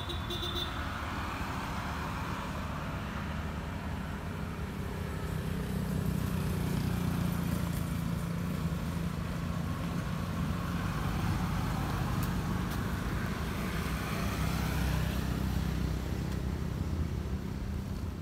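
Low, steady rumble of a motor vehicle engine, louder through the middle of the stretch.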